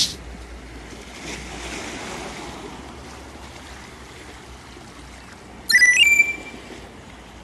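Sea waves washing onto the shore, a steady rushing with one swell a little over a second in. A short, loud, high-pitched ringing sound cuts in about six seconds in.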